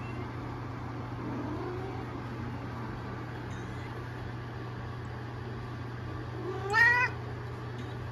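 Orange tabby kitten meowing: a faint call about a second and a half in, then one louder meow rising in pitch near the end, over a steady low hum.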